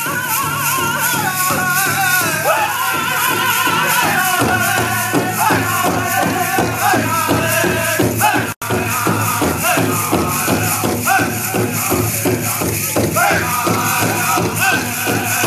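Powwow drum group singing in high voices over the steady beat of a big drum, with the metal cones of jingle dresses rattling. The drumbeat grows heavier about four seconds in, and the sound drops out for a split second a little past halfway.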